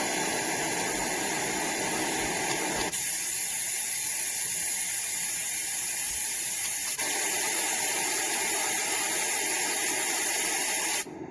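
White noise sleep machine playing its built-in noise tracks through its speaker: a steady hiss that switches abruptly to a different, thinner and brighter noise about three seconds in, back to a fuller noise about seven seconds in, and cuts to a quieter, duller sound just before the end.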